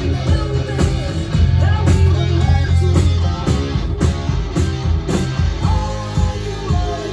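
Live rock band at a sound check: electric guitar, bass guitar and drums playing loud, with heavy bass and steady drum hits.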